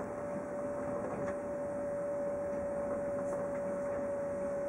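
Running noise inside a moving passenger train carriage: a steady rolling rumble with a constant whine over it and a few faint ticks.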